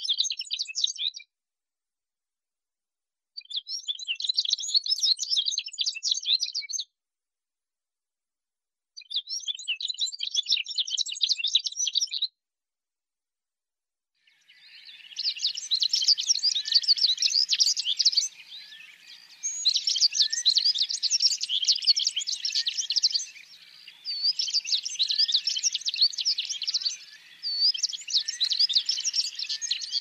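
Cape canary singing: fast, high twittering phrases a few seconds long with silent gaps between them. From about halfway through, the song comes in longer, denser bouts with only short breaks.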